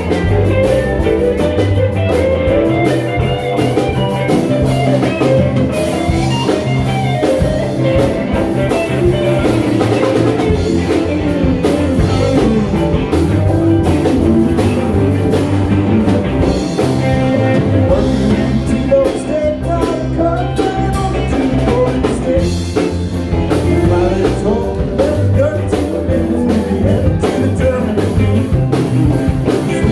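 Live band playing a blues-rock number, with guitar and drums.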